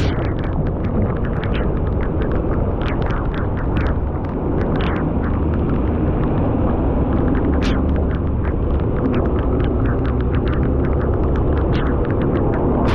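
Steady low rumble and rush of a vehicle under way, with many scattered sharp ticks throughout.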